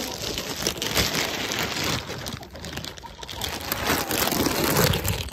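Dense rustling and pattering of many small knocks as fruit-ring cereal is scattered across the barn floor and goats and chickens jostle and peck at it.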